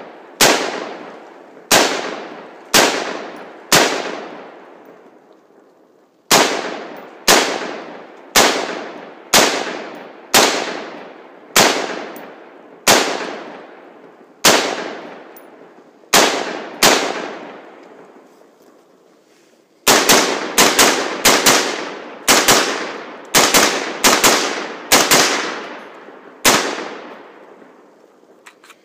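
AR-15 rifle fired semi-automatically, each shot's report ringing out and fading over about a second. The shots come at roughly one a second for most of the first half, pause for a few seconds, then come as a quicker string of rapid shots.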